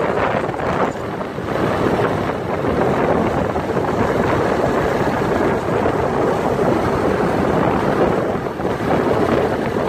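Wind rushing over the microphone of a moving motorcycle, a steady loud rush with the bike's engine running beneath it.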